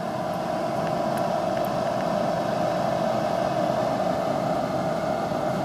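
Old HVAC air handler running: a steady hum of the blower and rushing air, with a constant mid-pitched drone and no change in level.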